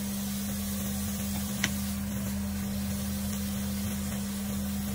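Zucchini noodles and mushrooms being stirred with a spatula in a nonstick frying pan, quietly sizzling, over a steady low hum from the kitchen. There is one sharp click, likely the spatula against the pan, about one and a half seconds in.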